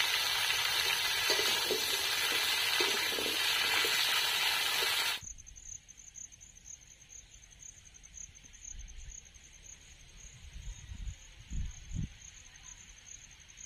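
Pumpkin chunks, vegetable stems and green chillies sizzling in hot oil in a karahi. About five seconds in, the sizzling cuts off to quiet outdoor ambience with a faint steady high-pitched trill and a few low wind rumbles on the microphone.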